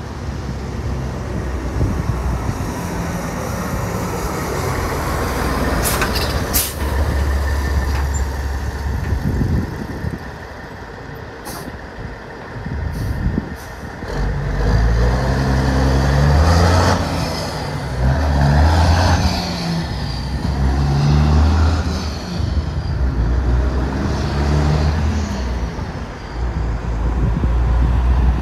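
Diesel semi truck with a skip-loader hoist and scrap container coming up to a stop with a few short sharp air-brake sounds, then pulling away and shifting up through several gears, the engine climbing and dropping with each shift.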